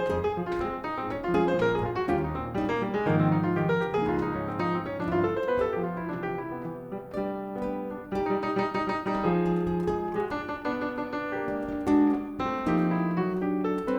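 Live jazz, with acoustic piano most prominent, playing a steady stream of chords and single notes.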